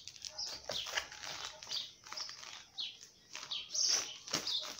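Plastic food packaging crinkling and rustling as packs of flour are handled and pulled from a bag, with a few sharp clicks and short high chirps scattered through.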